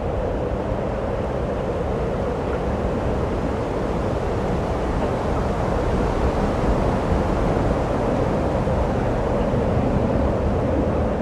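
A steady vehicle rumble with wind-like noise, holding evenly without breaks and swelling slightly about halfway through.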